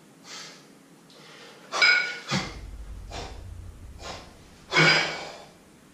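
A man breathing hard and sharply through the nose and mouth while jerking a pair of kettlebells, a quick breath with each effort. Two loud, partly voiced breaths come about two and five seconds in, with a low rumble between them.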